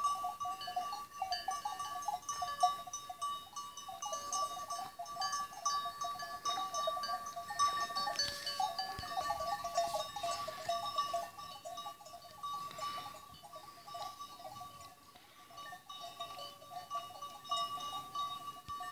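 A flock of sheep: many bells on the flock ring steadily at several pitches, with some bleating.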